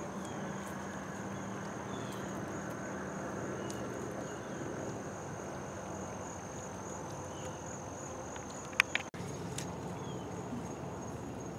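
Insects, crickets by their sound, trilling in one steady high-pitched tone over a soft outdoor background, with faint short bird chirps. Two sharp clicks come close together about nine seconds in.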